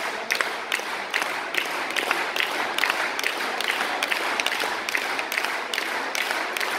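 Hands clapping in a steady rhythm, about two and a half claps a second, over general crowd noise in a large echoing hall.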